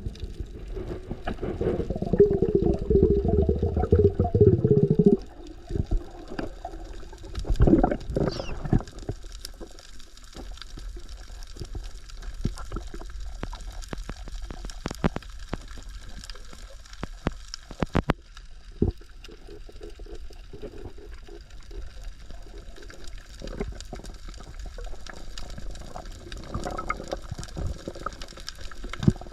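Water gurgling and sloshing, with a louder gurgling stretch from about one to five seconds in, then a steady watery hiss broken by many small sharp clicks and knocks.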